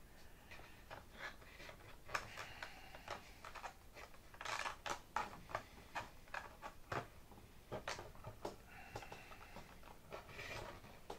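Faint, irregular clicks, taps and rustles of fingers working a Velcro strap around a fuel tank inside a model airplane's fuselage. One brief, louder rasp comes about four and a half seconds in.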